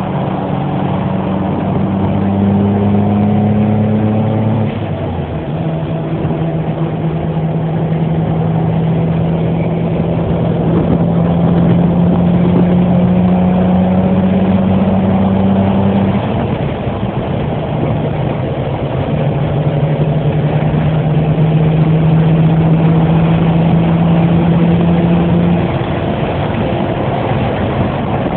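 Car engines running at a steady idle. The engine note shifts about five seconds in and again around sixteen seconds.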